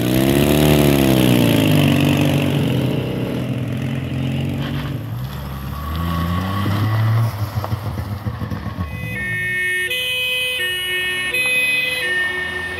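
Old vehicle engines driving off, one revving up and down over the first few seconds. About nine seconds in, music with held notes comes in over the engine sound.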